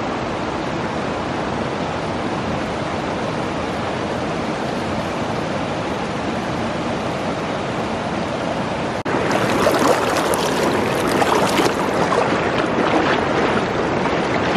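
Fast river water rushing over stones in a steady, even rush. About nine seconds in it jumps abruptly to a louder, hissier rush.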